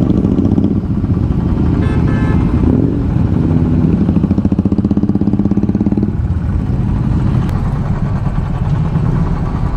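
Royal Enfield single-cylinder motorcycle engine running at low revs as the bike rolls slowly and pulls up, with an even, fast thump that is strongest around the middle and eases off after about six seconds.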